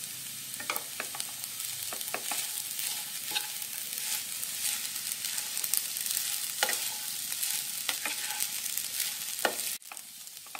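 Soaked sago pearls (sabudana) frying in oil in a kadhai, with a steady sizzle and a wooden spatula scraping and tapping the pan as the mixture is stirred. Near the end the sound drops off suddenly to a fainter hiss.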